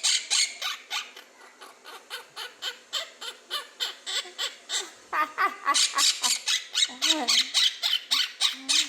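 Quaker parrot (monk parakeet) giving a fast, even run of short chirps, about four to five a second, growing louder about five seconds in, with some gliding whistle-like notes mixed in. It is the bird's imitation of laughing.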